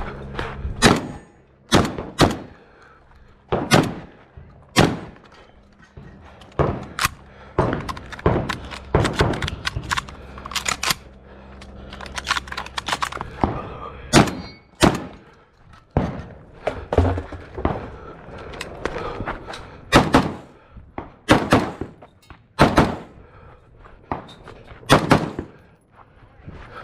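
A string of close-range gunshots from a pistol and a shotgun, about two dozen shots at an uneven pace, some in quick pairs a fraction of a second apart and others a second or two apart.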